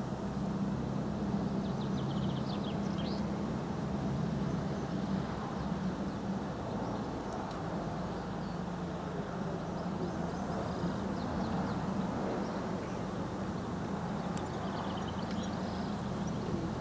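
LNER A4 Pacific steam locomotive No. 4464 Bittern approaching at speed with its train, a steady rumble with a low hum. Birds chirp briefly about two seconds in and again near the end.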